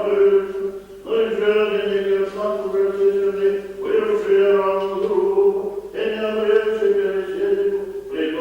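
Liturgical chanting: voices sing held notes in long phrases, each a few seconds long, with short breaths between.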